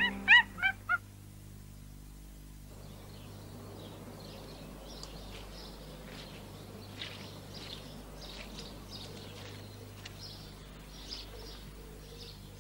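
Faint outdoor birdsong: many small birds chirping over a quiet background. It opens with a quick run of four or five short, high yelping calls in the first second.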